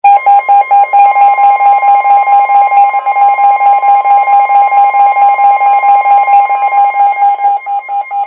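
NOAA weather radios sounding their alert alarms for an incoming special marine warning: the broadcast's steady 1050 Hz warning tone with rapid, even electronic beeping from the receivers over it. The sequence signals that a warning is being issued.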